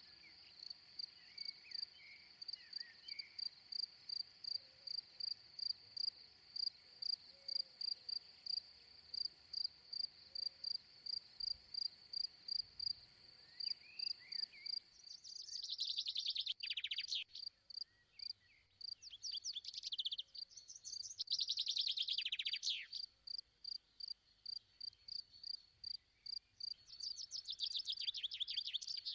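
Insects chirping steadily in a high, regular pulse of about two chirps a second. In the second half, louder rasping bursts of a second or two break in several times.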